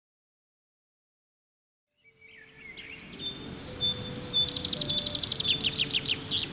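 Digital silence for about two seconds, then a birdsong soundscape fades in: many small birds chirping and trilling quickly over a steady noisy bed, with a few long, low sustained tones beneath.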